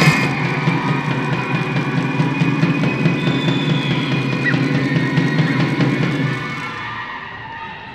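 Music with drums for a dance routine, getting quieter about six seconds in.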